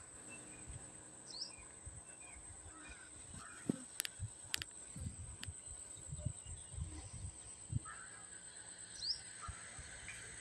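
Faint rural outdoor ambience with a few short, high bird chirps. There are two sharp clicks about four seconds in and scattered soft low thumps.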